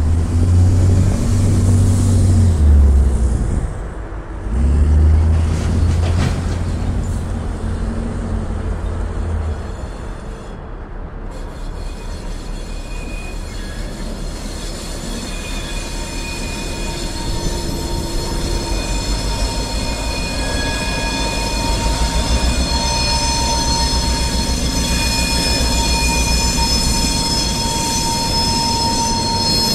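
Two EMD GP10-1 diesel locomotives running light and drawing closer. A loud low rumble fills the first ten seconds; then the wheels' high-pitched squeal rises over the engines' deep rumble, growing louder as the units approach and pass.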